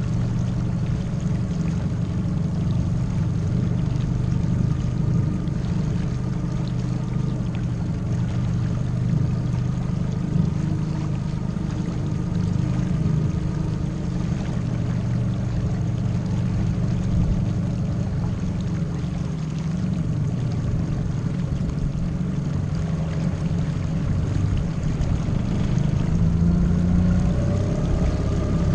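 Suzuki DF20A four-stroke outboard motor running steadily at low speed, pushing a small aluminium boat. Its note rises a little near the end.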